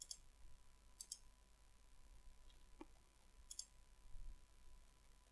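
Faint clicks of a computer keyboard and mouse. There is one near the start, a pair about a second in, and another pair about three and a half seconds in.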